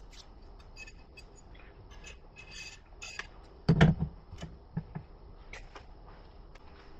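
Light clicks and scrapes of hands working a metal TV swivel wall mount and a power cord, with one louder knock about four seconds in.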